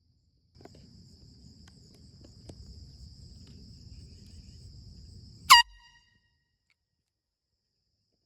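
One short, loud air horn toot about five and a half seconds in, cut off within half a second. Before it, a low rumble with a steady high-pitched whine.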